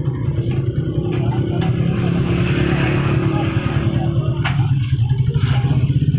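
Motorcycle engine idling with a steady, rapid pulsing, and a sharp knock about four and a half seconds in.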